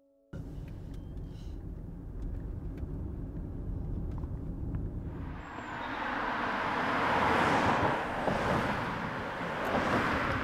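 Cars passing on a road over a low steady rumble. Tyre and engine noise swells from about five seconds in, is loudest around seven to eight seconds, and rises again near the end as another car goes by.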